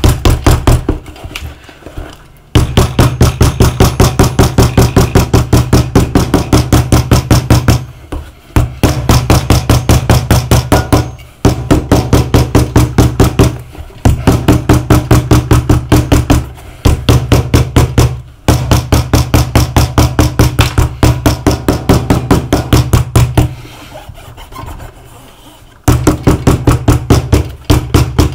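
A hammer pounding a freshly glued replacement sole onto a shoe in rapid, even blows, about four a second. The blows come in runs of several seconds with short pauses, and are weaker for a stretch near the end. The pounding seats the sole so the glue bond holds.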